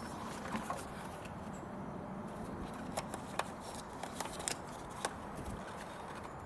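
Scattered light clicks and knocks over steady background noise, from hands working plastic parts loose around a car's coolant level sensor.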